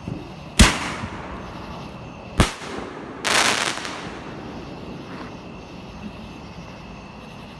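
Fireworks going off: two sharp bangs about two seconds apart, followed by a hissing burst lasting about a second.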